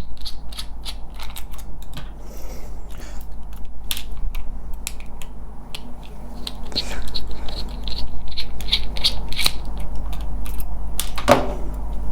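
A small screwdriver turning screws out of a plastic charger housing, with irregular light clicks and ticks of the driver and plastic parts being handled, over a steady low hum.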